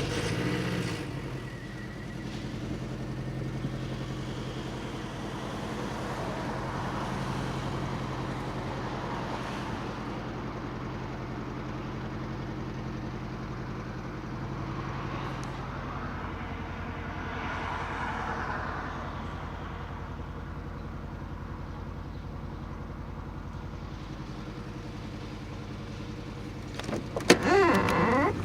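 R53 MINI Cooper S supercharged 1.6-litre four-cylinder engine catching and then idling steadily with a rhythmic pulse, misfiring on cylinder 1, which has zero compression; the owner found a slack timing chain and a broken guide rail. Near the end the engine briefly gets louder.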